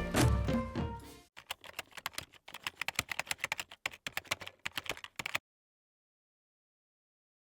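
A song fades out over the first second. It is followed by about four seconds of quick, irregular clicks, like rapid typing, which stop abruptly and leave dead silence.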